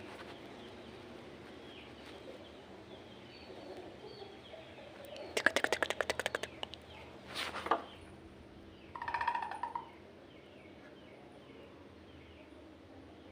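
Small Indian civet (musang rase) calling: a rapid chattering run of clicks about five seconds in, then a short sharp call, then a pitched call about nine seconds in. Faint chirping runs underneath.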